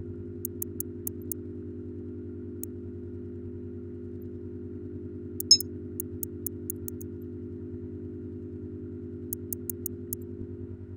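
Computer mouse clicking in quick runs of several clicks, with one louder click about halfway through, over a steady low hum.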